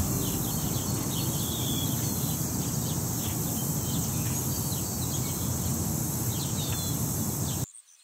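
Outdoor natural ambience: a steady high insect drone with short bird chirps now and then over a low rumble. It cuts off suddenly near the end.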